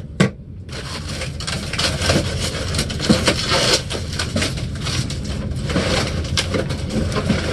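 Cardboard shipping box scraping and crackling as a large guitar case is worked up and out of it, with two sharp knocks right at the start.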